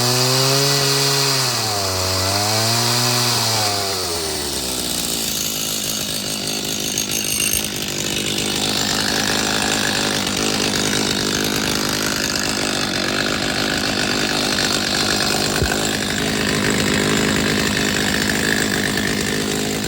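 Stihl MS 310 two-stroke chainsaw engine revving up and down twice. From about four seconds in it runs steadily at high speed with a noisier sound.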